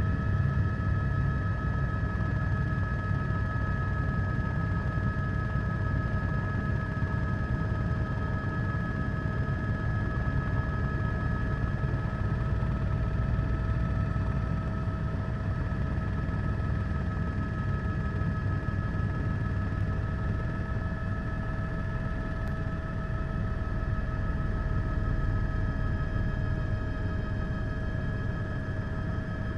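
Helicopter heard from on board: a steady low rumble with a constant high whine of a few fixed tones.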